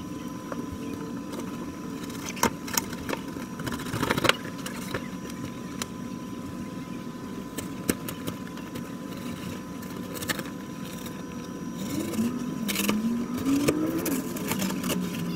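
Cardboard shipping box being handled and torn open, with a few sharp rips and crackles of tape and flaps; the loudest come about two and a half and four seconds in. A steady engine drone runs underneath, and near the end its pitch rises and falls as it gets louder.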